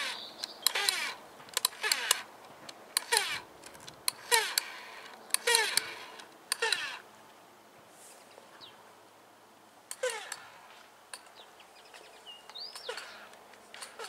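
A dog barking in single short barks about a second apart. The barks stop for a few seconds midway, then start again. A bird chirps faintly near the end.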